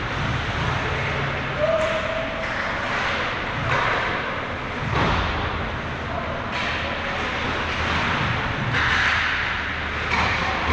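Ice hockey play on a rink: skates scraping across the ice over a steady arena hum, with several sharp knocks of sticks and puck.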